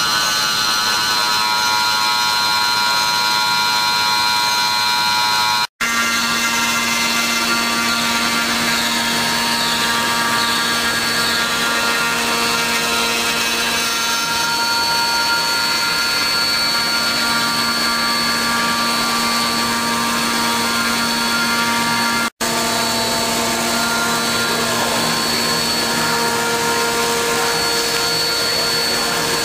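5-axis CNC milling machine running and cutting, a steady spindle whine over cutting noise. It cuts out for an instant twice, and the mix of tones changes after each break.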